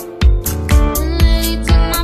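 Background music with a steady beat of about four pulses a second, with a brief break in the music right at the start.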